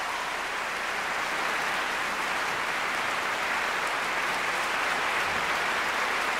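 Large arena audience applauding steadily after a live song.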